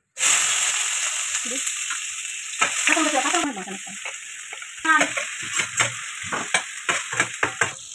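Hot oil sizzling in a metal kadai as chopped onion fries, loudest just after the start and easing over the first few seconds. From about five seconds in, a slotted metal spatula scrapes and knocks against the pan in quick strokes as the onion is stirred.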